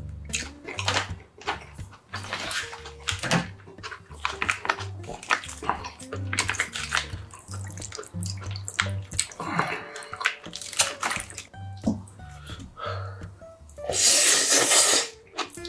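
Plastic pouch rustling and snipped open with scissors, then cold naengmyeon broth poured from the pouch into a glass bowl of sliced raw seafood, over background music with a steady bass beat. Near the end there is a loud, noisy mouthful of rice taken with chopsticks, about a second long.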